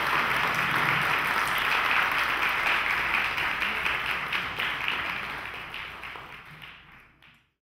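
Audience applauding, a dense patter of many hands clapping that fades out in the last couple of seconds.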